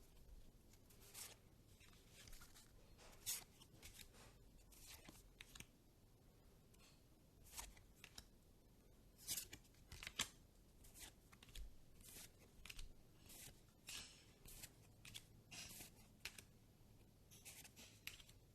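Faint handling of Pokémon trading cards: a string of short, quiet slides and flicks at an irregular pace, with a few sharper ones in the middle.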